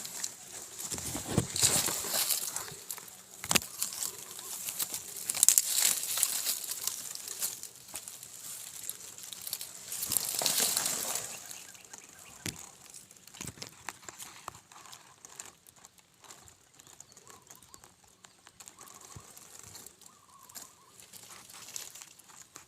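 Rustling and crinkling in several bursts, with a few sharp knocks; it fades to quieter scattered rustles after about twelve seconds.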